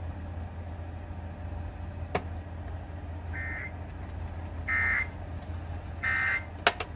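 Steady low electrical hum, broken by a click about two seconds in, then three short electronic beeps about a third of a second each and evenly spaced, followed by a quick double click near the end.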